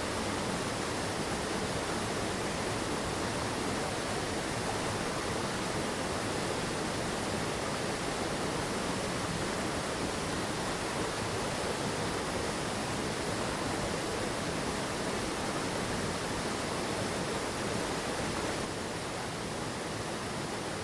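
Mountain stream water rushing and falling over rocks, a steady, even rush; it drops a little in level near the end.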